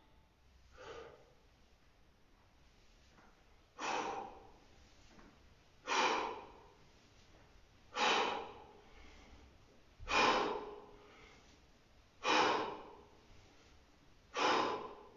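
A man breathing hard through a set of bodyweight squats, with a forceful exhale about every two seconds, one per repetition. There are seven in all and the first is faint.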